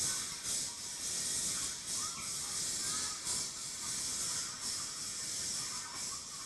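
Steam locomotive pulling away from a station, with loud hissing steam that swells in pulses roughly once a second.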